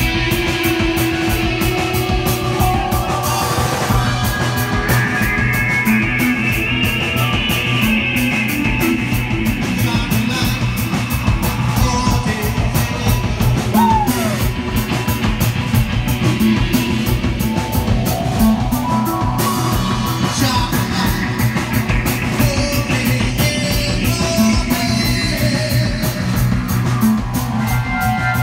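Live psychedelic rock band playing: electric guitar, bass guitar and drum kit, with cymbals ringing throughout. A lead line swells upward twice.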